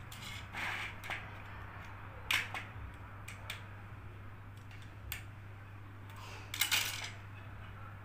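Plastic clicks and snaps from a washing machine control panel's plastic housing being handled and pried at with a screwdriver, with the sharpest snaps about two seconds in and a cluster near seven seconds. A low steady hum runs underneath.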